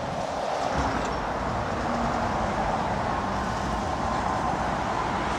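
Articulated container lorry passing close beneath, its diesel engine and tyres giving a steady rumble that builds about a second in, over the noise of dual-carriageway traffic.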